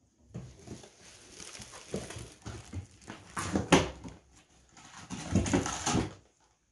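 A kitten's claws scraping and scrabbling on the sisal rope of a cat scratching post as it clings to the top and slides down. The scraping comes in rough, uneven bursts, loudest about halfway through and again near the end.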